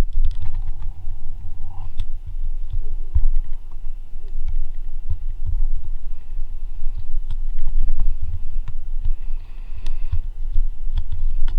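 A loud, uneven low rumble with scattered small clicks.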